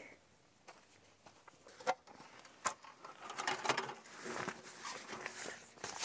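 Faint rustling with a few light clicks and taps, starting about two seconds in after a near-silent opening.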